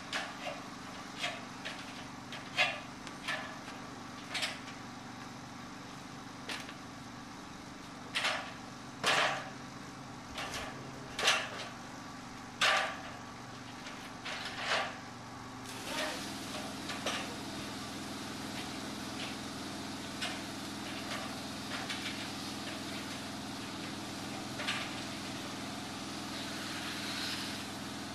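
Engine of a pressure-washing rig running steadily, with irregular sharp knocks and clicks through the first half. About 16 seconds in its note changes and a steady hiss joins as water starts spraying from the wand.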